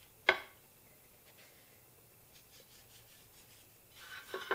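Coarse sea salt being sprinkled and rubbed by hand onto a raw steak on a ceramic plate. There is a sharp tap about a quarter second in, faint scattered ticks in the middle, and a rustle of the hand rubbing the meat near the end.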